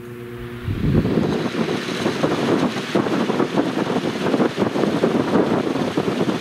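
1932 Delco 16-inch desk fan starting up on its first run since restoration: the motor's steady hum gives way, under a second in, to a loud, steady rush of air from the spinning blades buffeting the microphone.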